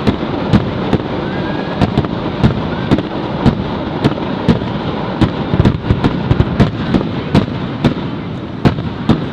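Fireworks display: a rapid, irregular barrage of sharp bursts and cracks, several a second, over a continuous rumble of shells going off.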